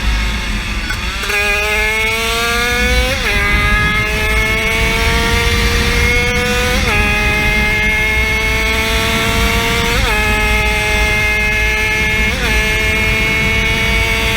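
A 50cc motorcycle engine running at full throttle. The pitch climbs slowly and dips briefly four times, about every three seconds, as the rider shifts up through the gears.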